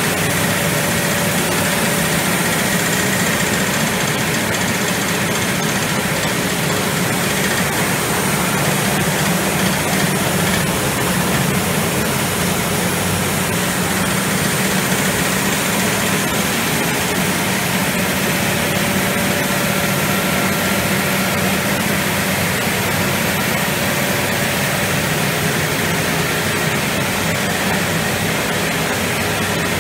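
Steady, unchanging drone of chocolate process-line machinery running: a low motor hum under an even mechanical rush.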